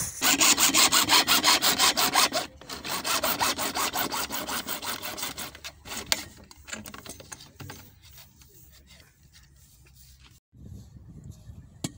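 Hacksaw sawing through a black plastic drainage pipe in fast, even back-and-forth strokes, loudest over the first two and a half seconds, then weaker and slower until they die away about eight seconds in.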